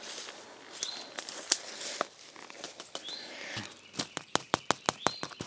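Fingers rapidly tapping on a black poly water pipe, about six taps a second, starting about four seconds in, after a few scattered rustling clicks; the pipe sounds hollow, a sign the water has not yet risen this far up the ram pump's delivery pipe. A bird gives a short rising chirp now and then.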